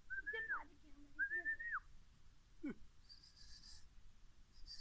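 A person whistling to a puppy: two held notes, each dropping away at its end, then a quick falling whistle about two and a half seconds in. A faint, high-pitched chirping comes and goes in the second half.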